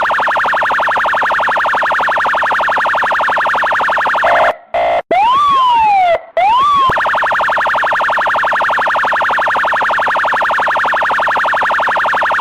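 Electronic police siren sounding a rapid pulsing tone, switched about four and a half seconds in to two short whoops that rise quickly and then fall, before the rapid pulsing resumes.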